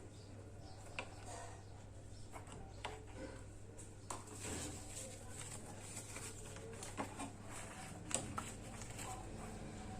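Faint scattered clicks and light taps of handling on a workbench, a few sharper knocks about four, seven and eight seconds in, over a steady low hum.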